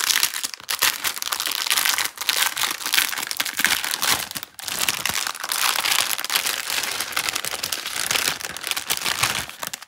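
Clear plastic packaging crinkling as it is handled and pulled off a strip of small bags of diamond-painting drills, with a brief pause about four and a half seconds in.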